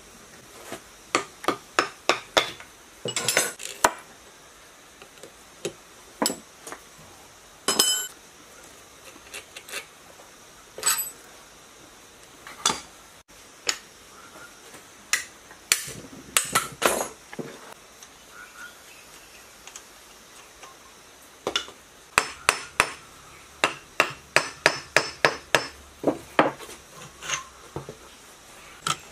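Hand tools working on a rusty scrap diesel engine: sharp metallic clinks and taps, often in quick runs of several, as a socket wrench turns on its bolts and a hammer strikes a bar against the engine block, with tools clattering as they are picked up and set down on the metal bench.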